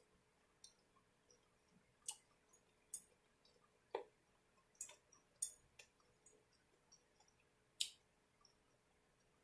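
Faint mouth clicks and soft chewing sounds while eating close to the microphone, a dozen or so short sharp clicks at irregular intervals over near silence.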